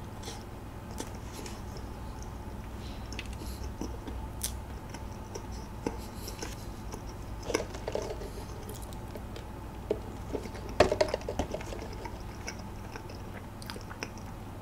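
A mouthful of baked donut filled with whipped cream being chewed: soft, moist chewing with scattered small mouth clicks and smacks, a little louder about two thirds of the way through, over a low steady hum.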